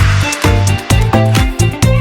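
Upbeat electronic dance music with a steady beat and bass line.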